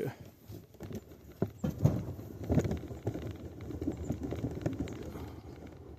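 Irregular knocking and rattling as the metal parts of an old bicycle are handled and worked on, with a few sharper knocks in the first three seconds and a busier, uneven clatter after that.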